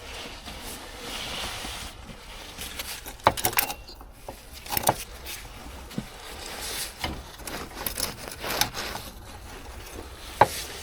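Hand tools and metal parts knocking, clicking and scraping as bolts are worked loose from a truck turbocharger's mounting, with a handful of sharp knocks spread through.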